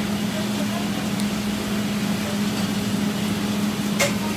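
Steady mechanical hum of running commercial kitchen equipment, with one low droning tone, and a single sharp knock about four seconds in.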